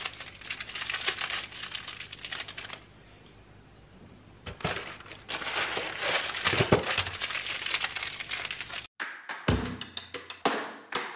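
Plastic wrappers crinkling and tearing as individually wrapped Twinkies are unwrapped, in two stretches with a short pause between. About nine seconds in, this cuts off and background music with a drum beat begins.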